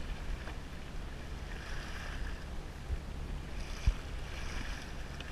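Kayak on open water: steady low wind rumble on the microphone with faint water noise around the hull, and two soft thumps about three and four seconds in.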